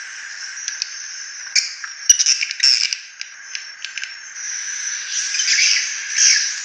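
Swiftlet lure call recording played back: rapid swiftlet twittering chirps and clicks over a steady high, insect-like drone, rough and harsh in tone. The chirps come in louder clusters about two seconds in and again near the end. It is a call-and-roost lure meant to draw swiftlets into a swiftlet house.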